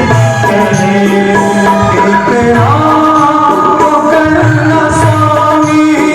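Devotional bhajan music: long held melody notes over a steady tabla rhythm, the melody stepping up to a new note about two and a half seconds in.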